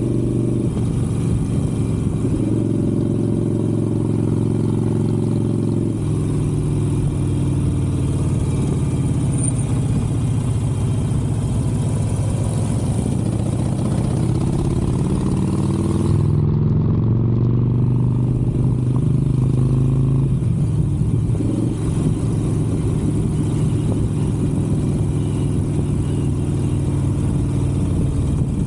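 Harley-Davidson Sportster 883's air-cooled V-twin engine running while riding, its pitch stepping up and down a few times with throttle and gear changes.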